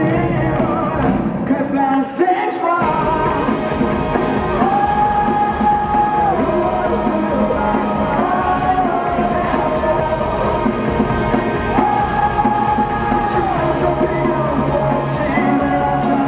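Live rock band playing with a singer holding long, sustained notes over the guitars and drums. About two seconds in the low end drops out for a moment, then the full band comes back in.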